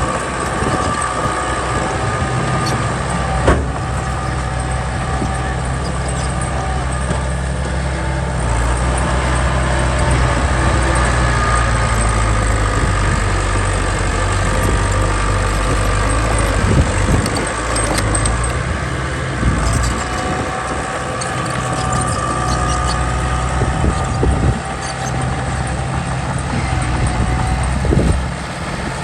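Heavy construction machinery running with a steady low engine drone that shifts in load a few times, with a few sharp knocks.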